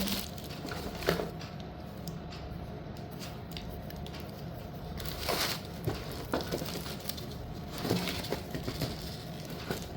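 Pieces of slate being handled, knocking and clicking against each other and a surface in scattered taps, the louder ones about a second in and several more in the second half, over a steady low hum.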